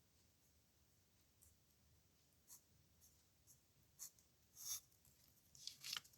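A pen scratching across paper in a few short, faint strokes, with the longest and loudest strokes in the last two seconds.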